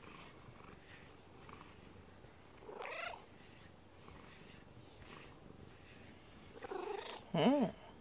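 Domestic cat purring as its face is brushed, a sign of contentment. A short rising chirp comes about three seconds in, and a louder, short rising-and-falling call near the end.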